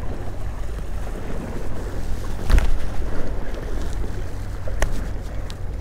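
Wind buffeting the microphone as a steady low rumble, with a knock about two and a half seconds in and two sharp clicks near the end.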